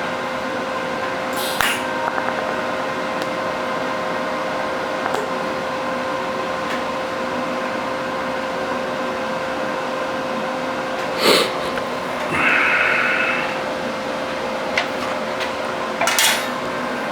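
Steady machine hum with a few sharp metal clinks and clanks of hand work on a steel sculpture during TIG welding repairs, and a short buzz about twelve seconds in.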